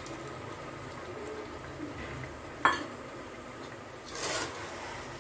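Cooking in a metal pot: a single sharp metal clink about halfway through, then a steel spoon stirring and scraping through chicken and tomato puree in the pot about a second later.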